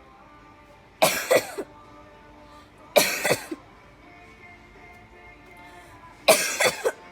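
Three loud bouts of exaggerated, fake coughing for a prank, about a second, three seconds and six seconds in, each a harsh cough of two or three hacks lasting about half a second. Quiet music plays underneath.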